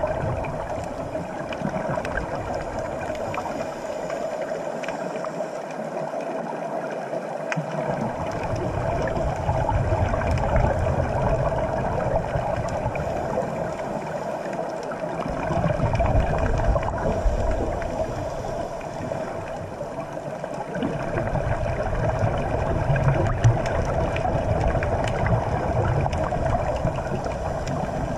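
Underwater ambience picked up through a camera housing: a steady droning hum, with a low rumble that drops out twice and comes back.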